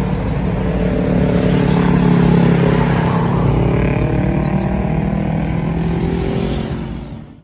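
City road traffic: cars and motor scooters running and passing close by, a steady engine drone with pitches slowly shifting as vehicles go past. The sound fades out near the end.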